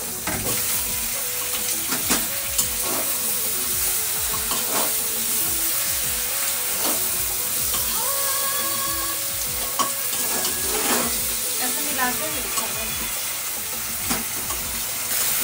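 Chicken pieces sizzling in hot oil with fried onions in a pressure cooker pot, a steady sizzle as the chicken browns. A spoon stirs and scrapes against the metal pot now and then.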